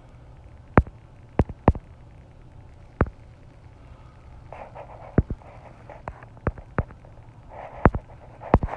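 Irregular sharp clicks and taps, about a dozen, spaced unevenly over a low steady hum, with faint muffled mumbling twice in between.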